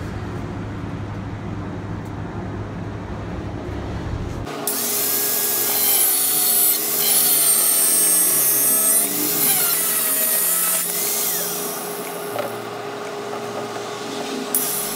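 Angle grinder cutting into a perforated sheet-metal basket: a sudden loud grinding hiss starts about four seconds in, over a steady motor whine whose pitch dips and recovers as the disc bites. It eases off briefly near the end, then bites again.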